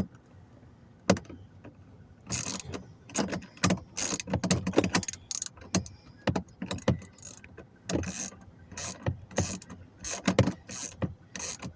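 Hand ratchet with a 9/32 socket on an extension clicking in short, irregular runs as screws are backed out of a cabin air filter panel.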